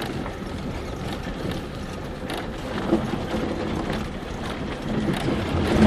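Lada Niva 21214 driving over rough frozen ground: steady engine and road rumble with scattered knocks and rattles, and a louder thump about three seconds in and another near the end.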